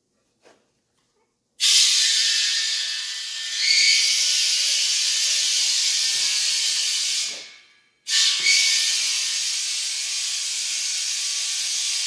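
Compressed air hissing from the propane-tank pressure pot in two long bursts: one of about six seconds starting a couple of seconds in, then after a brief break one of about four seconds, each starting abruptly.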